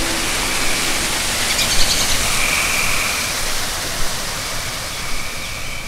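Steady rush of flowing water. A few short high tones sound over it, with a quick trill about two seconds in.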